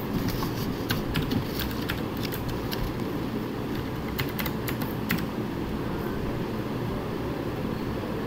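Computer keyboard being typed on: a scattered run of key clicks that stops about five seconds in, over a steady low background rumble.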